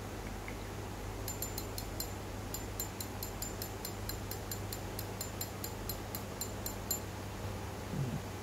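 Shimano Sephia BB C3000SDH spinning reel clicking lightly and evenly as it is turned by hand, about four clicks a second. The clicking starts a little over a second in and stops near the end.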